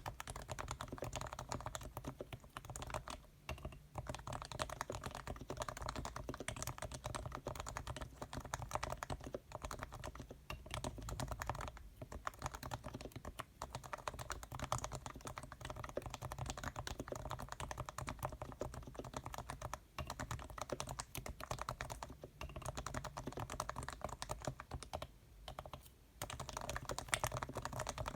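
Fast continuous typing on a Leopold FC660C, a keyboard with Topre-style electro-capacitive switches whose sliders, springs and stabilizers are lubed with Krytox and whose case is filled with dampening foam, giving a muted, dense clatter of keystrokes. The typing pauses briefly a few times.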